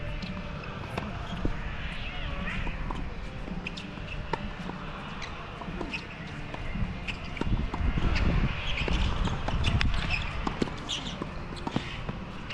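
Tennis rally on a hard court: sharp knocks of racquet strikes and ball bounces, with the player's footsteps scuffing on the court. A low rumble swells about eight seconds in and lasts a few seconds.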